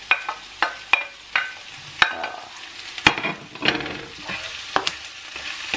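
Chicken, spice paste and chopped spring onions sizzling in a nonstick frying pan while a spatula stirs and tosses them. The hiss of the frying runs under a quick series of sharp knocks, about two a second, as the spatula hits the pan, each ringing briefly.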